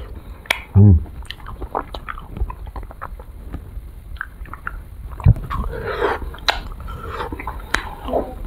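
Close-up mouth sounds of someone eating an ice cream bar: wet lip smacks, sucking and chewing, with many small clicks. A short, loud hummed "mm" comes about a second in, and a sharp click a little past five seconds.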